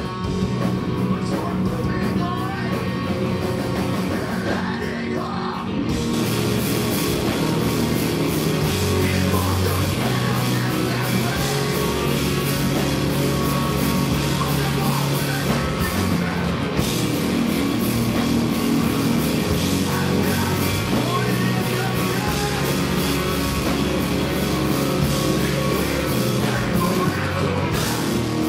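Post-hardcore band playing live, with guitar, drums and vocals. After a quieter opening, the full band with crashing cymbals comes in about six seconds in.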